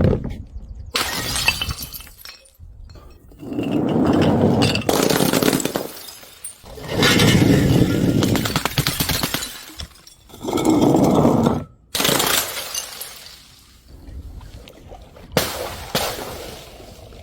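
Paint-filled balloons bursting one after another: several sudden pops and longer rushes of splattering, each lasting a second or two.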